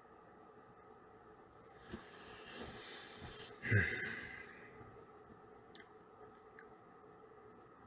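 A person moving and breathing close to a phone's microphone: about two seconds of breathy hiss, then a soft bump about midway that fades within a second, over a faint steady hum.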